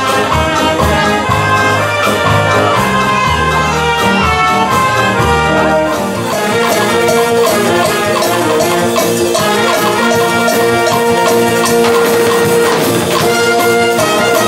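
A live wind band playing, with brass and saxophones over a drum kit and a shaken tambourine.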